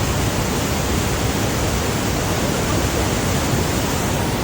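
Waterfall noise from the Rhine Falls: a loud, steady rush of falling water with no change.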